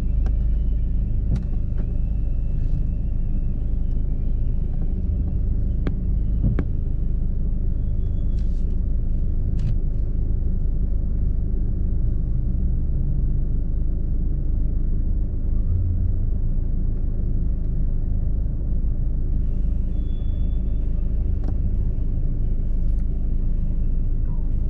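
Steady low rumble of a car being driven, heard from inside the cabin: engine and road noise, with a few faint clicks.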